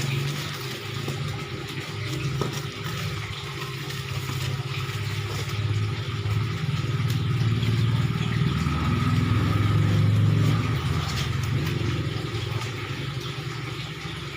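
A motor vehicle engine running steadily, growing louder to a peak about ten seconds in, then easing off.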